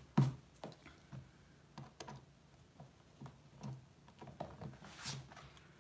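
Small blade scraping and clicking at the rim of a freshly drilled hole in a hard black plastic container, trimming away the drilled plastic burrs so the fitting will sit tight. It comes as an irregular run of light clicks and scrapes, loudest just after the start.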